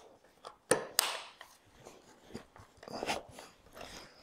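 A few light clicks and taps of a metal drop-leaf table hinge being handled and set into place on a wooden tabletop. The two sharpest come close together about a second in, with softer handling taps later.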